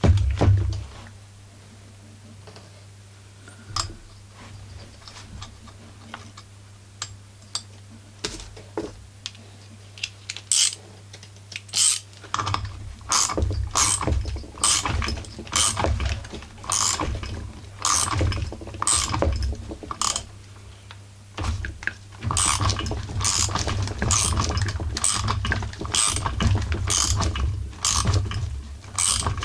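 Ratcheting combination wrench clicking as it runs down the 13 mm flywheel screw on a Husqvarna 44 chainsaw. There are a few scattered clicks at first, then from about a third of the way in a steady run of ratchet strokes, roughly one or two a second.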